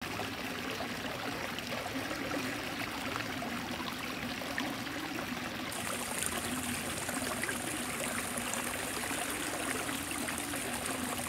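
A small rock waterfall in a koi pond, splashing and trickling steadily into the pool. The hiss gets a little brighter about halfway through.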